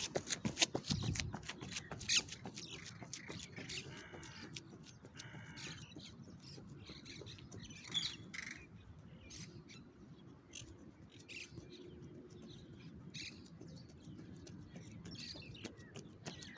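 Wild birds calling outdoors: many short calls, with two longer calls about four and five seconds in.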